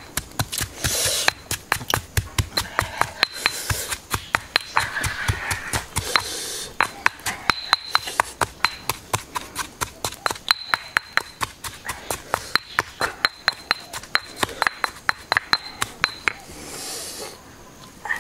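Stone pestle pounding in a stone mortar, a steady run of sharp knocks about three a second, crushing red chillies into a paste. The pounding stops a couple of seconds before the end.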